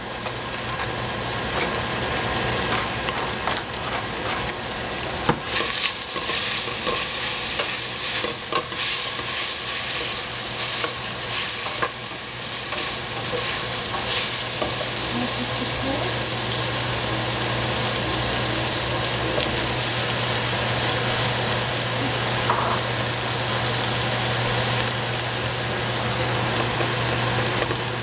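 Food sizzling and frying in a pan while it is stirred, with the utensil scraping and clicking against the pan, most often in the first half. A steady low hum runs underneath.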